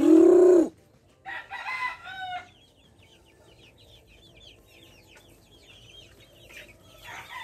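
A flock of young Rhode Island Red chickens, with constant high peeping and chirping. A loud, short, low call comes right at the start, and louder rising-and-falling calls come about a second and a half in and again near the end.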